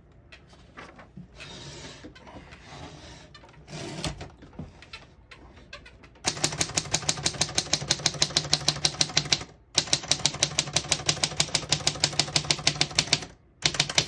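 1934 Corona Four portable typewriter: a few seconds of faint clicks and handling, then rapid typing from about six seconds in. The typebars strike in a fast, even run that breaks off briefly twice.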